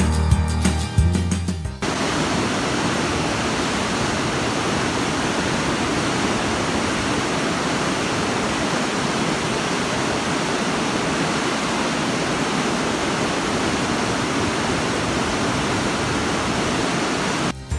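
Steady rush of fast-flowing river water. Background music plays for the first two seconds and cuts off abruptly as the water comes in.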